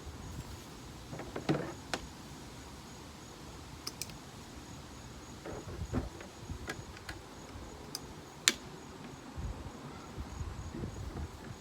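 Scattered sharp clicks and knocks from a plastic kayak and its scupper cart being handled as the kayak is lifted and settles onto the cart; the loudest knock comes about three-quarters of the way through. A faint high insect trill pulses evenly underneath.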